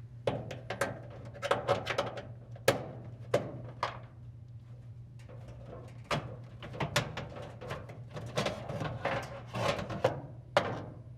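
Dryer parts being handled during disassembly: an irregular run of clicks, knocks and scrapes, with a steady low hum underneath.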